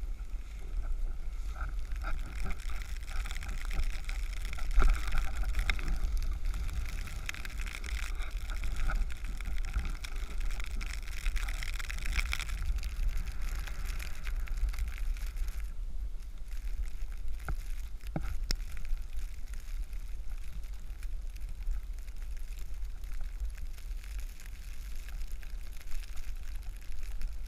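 Snowboard sliding and carving on groomed snow: a scraping hiss that swells and eases with the turns, stronger in the first half, over a steady low rumble of wind on the action camera's microphone.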